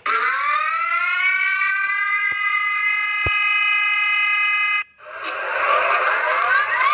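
Emergency alert siren played back: a siren tone winds up in pitch and holds steady for a few seconds, then cuts off. A harsher, noisier alarm sound with repeated rising sweeps follows.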